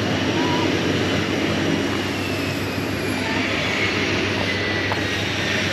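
Turboprop airliner engines running with a steady drone and a faint high whine.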